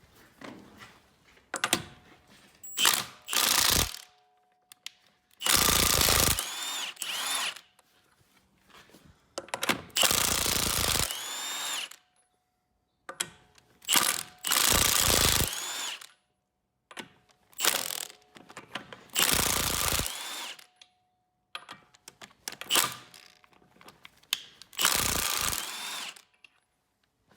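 Milwaukee impact wrench spinning off the wheel's lug nuts in a series of loud bursts of one to two seconds, each with a rising whine as the motor spins up. Short clicks and knocks come between the bursts.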